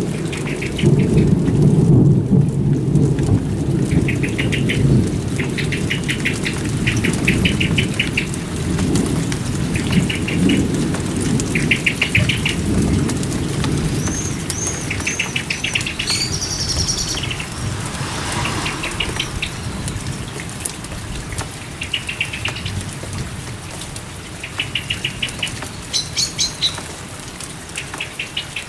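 Steady rain falling, with a long low rumble of thunder that fades away over the first half. A songbird repeats short, rapid trills again and again, with a few higher chirps.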